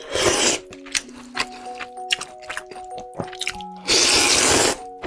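A person slurping noodles loudly twice, once at the start and again about four seconds in, with short clicks between. Background music of held notes plays underneath.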